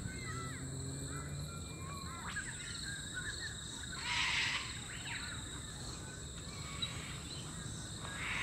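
Two harsh squawks from sulphur-crested cockatoos, one about four seconds in and another at the end, over scattered small-bird chirps and a steady high insect drone.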